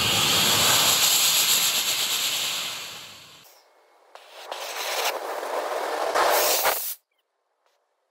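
Homemade fuses and small sugar rocket motors hissing as they burn on a rocket sledgehammer's head, in two bursts split by an edit; the second cuts off suddenly. The fuses are unreliable: some of the six rockets do not go off.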